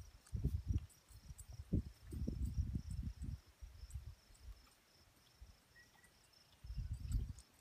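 Insects trilling steadily in a high, even tone, under several irregular low rumbles that come and go.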